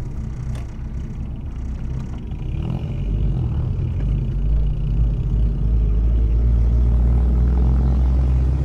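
Mazda Miata's four-cylinder engine under way, with road and wind noise in the open top-down cockpit: a low drone that grows louder about two seconds in and then holds steady.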